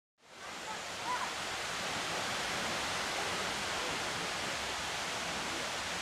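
Steady rush of a mountain stream running over rocks, fading in at the start and holding even throughout.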